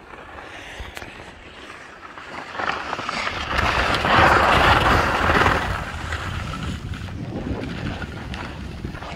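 Wind rushing over the microphone and skis hissing over packed snow during a downhill run, building from about two and a half seconds in, loudest around four to five seconds, then easing.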